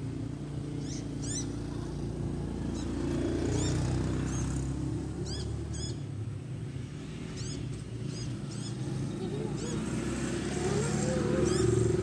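A steady low engine hum, with short high descending chirps every second or so.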